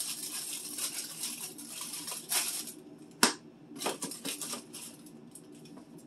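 Plastic food packaging crinkling and rustling as items are handled and shifted on a refrigerator shelf, with one sharp click a little past the three-second mark and another short spell of crinkling after it.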